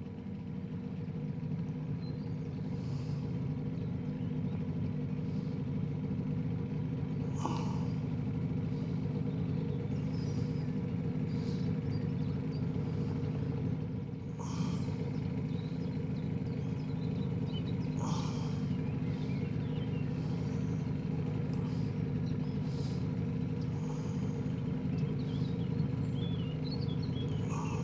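Johnson 9.9 outboard motor running at a steady, even drone while the boat moves along, with short high chirps every few seconds.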